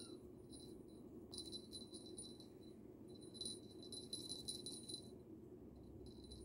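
Small bell on a cat toy jingling faintly in short spells as kittens bat at it, over a low steady room hum.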